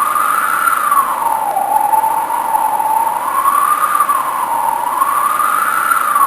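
A siren wailing: one tone rising and falling slowly, about every three seconds, over a steady hiss.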